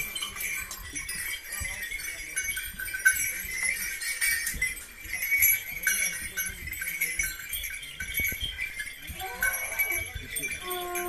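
Small metal bells jingling and ringing continuously amid a crowd's commotion. A steady blown horn note starts just before the end.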